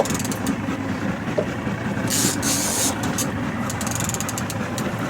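Boat engine running steadily, with a few faint clicks and a brief hiss about two seconds in.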